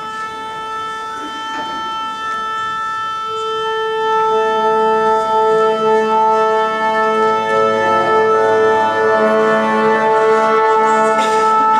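Orchestra tuning up: a wind instrument holds a steady tuning A. About four seconds in, the strings and other instruments join on the same note and its octave, and the sound grows fuller.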